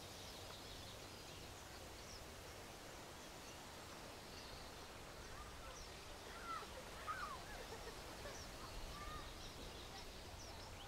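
Quiet outdoor nature ambience of small birds chirping faintly in the distance, with a few louder bird calls that slide in pitch a little past halfway.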